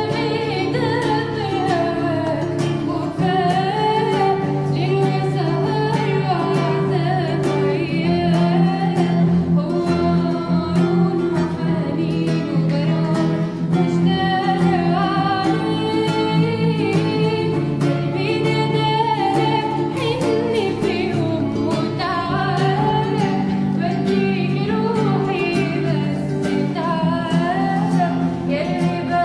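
A voice singing a slow Arabic melody with long, ornamented gliding phrases, over steady instrumental accompaniment.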